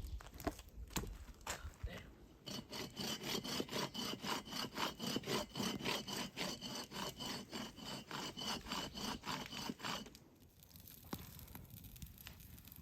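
Hand saw cutting through wood in quick, even back-and-forth strokes, starting about two seconds in and stopping about ten seconds in.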